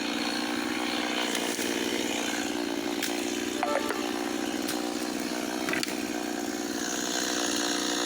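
Chainsaw engine running steadily at high revs, then shut off right at the end, its pitch falling as it winds down and stops.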